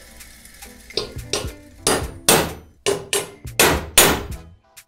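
The ground-to-a-point tip of a steel screwdriver bit worked against a rusty steel tube in a quick series of about ten sharp metal-on-metal strokes, starting about a second in, loudest near the middle and near the end.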